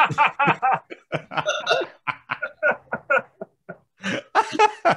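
Men laughing together in quick repeated bursts, breaking off briefly a little past the middle and then starting up again.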